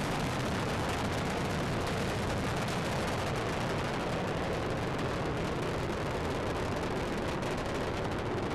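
Space Shuttle Discovery's rocket boosters and main engines during ascent: a steady rushing roar with crackling through it.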